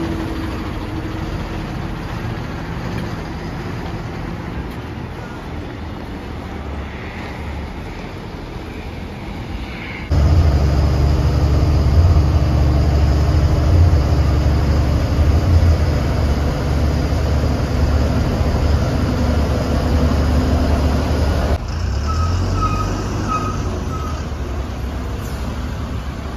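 Large passenger bus engines and road noise. A moderate engine rumble for the first ten seconds turns into a much louder, steady low drone inside the moving bus for about eleven seconds. It then drops back to engine and traffic noise from buses on the road, with a few short beeps near the end.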